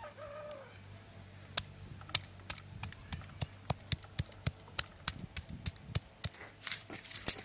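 Ginger and garlic being crushed with a handheld grinding stone on a flat stone slab (sil-nora): irregular knocks and clicks of stone on stone, a few a second.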